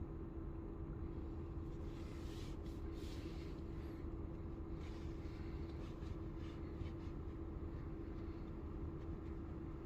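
Steady low hum of the vehicle under test, with one constant mid-pitched tone over a low rumble. A few faint ticks or taps come between about two and five seconds in.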